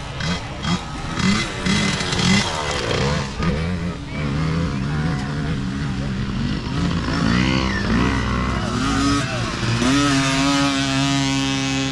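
Small youth dirt bike engines revving, the pitch rising and falling over and over with the throttle. About ten seconds in, one bike comes close and its engine holds a loud, steady, high note.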